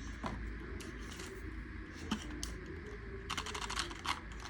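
Hands opening a product box and handling its packaging: scattered small clicks and crackles, with a quick run of clicks a little over three seconds in.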